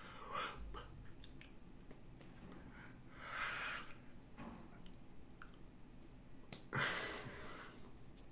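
A man's breathy exhalations and mouth noises, with three louder puffs of breath about three seconds apart, the last the loudest, and faint clicks in between.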